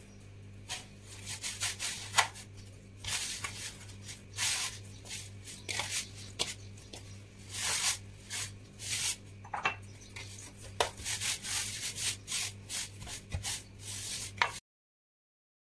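Hands gathering a moist semolina dough in a wooden bowl: irregular soft rubbing and squishing strokes of fingers and dough against the wood, over a low steady hum. The sound cuts out abruptly near the end.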